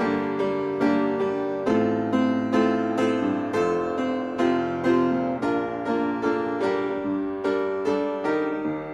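Slow instrumental piano music, with notes struck about twice a second and left to ring.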